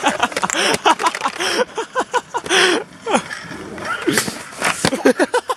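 Young men's voices talking and exclaiming, with a few sharp clicks among them.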